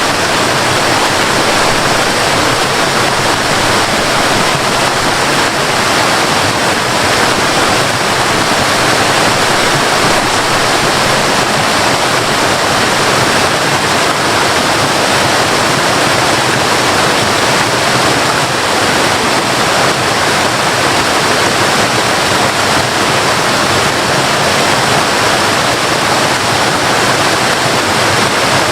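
Waterfall: water falling and rushing in a steady, unbroken loud roar.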